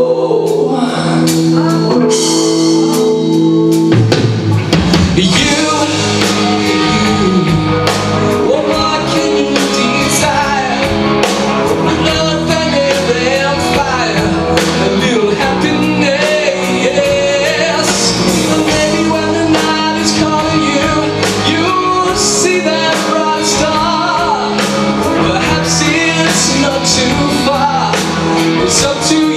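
Rock song with a singer over a band of guitar and drums; the bass and drums come in about four seconds in, after which the full band plays on.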